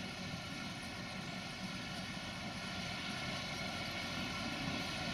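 A farm tractor's engine running with a steady drone.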